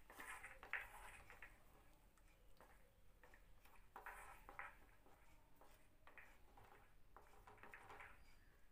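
Near silence with faint, short scrapes of a wooden spatula stirring thick vegetable masala around a nonstick kadai.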